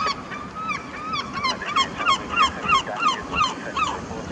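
A gull calling: a series of about a dozen loud, yelping falling notes, roughly three a second, building to a peak midway and then tailing off.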